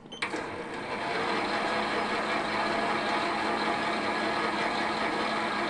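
Metal lathe switched on: a click, then the motor and gearing spin up over about a second and run steadily at about 300 rpm, turning a between-centres boring bar in a cast-iron cylinder.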